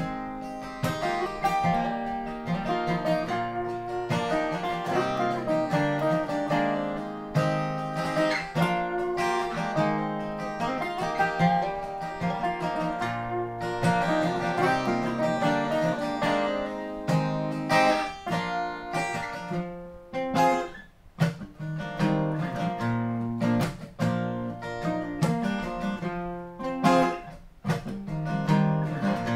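Two acoustic guitars playing a song's instrumental introduction, picked notes and strummed chords ringing together, with sharper strums in the second half.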